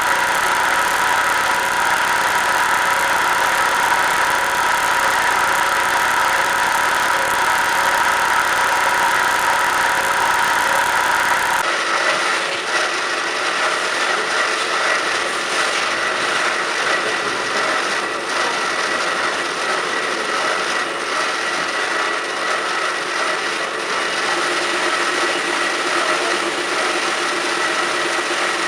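CORMAK S-280R semi-automatic metal-cutting band saw running steadily, a continuous machine noise with steady whining tones. About twelve seconds in the sound changes abruptly to a thinner machine noise with a steady high tone and faint ticks.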